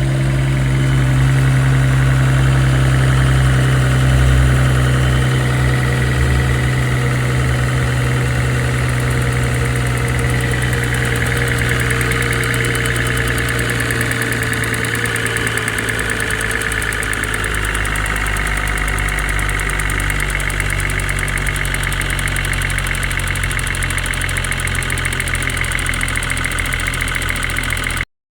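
Mercedes-AMG GT43 engine idling with a fast, steady ticking, the tick typical of a Mercedes EVAP purge valve that gets mistaken for timing-chain noise. The sound cuts off suddenly near the end.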